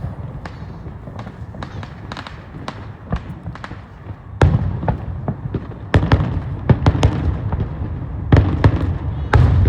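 Fireworks display: a string of booms and sharp cracks over a low rumble. They are sparse and lighter for the first few seconds, then come thicker and louder from about halfway through.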